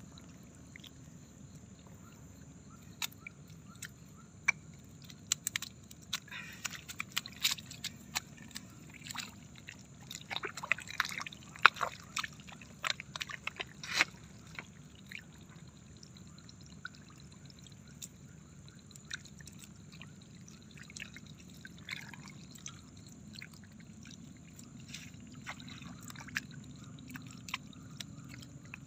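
Hands splashing and scooping in shallow water, with irregular sloshes, drips and small splashes that are busiest between about five and fifteen seconds in, while trapped small fish and freshwater prawns are gathered from the water by hand. A faint steady high tone runs underneath.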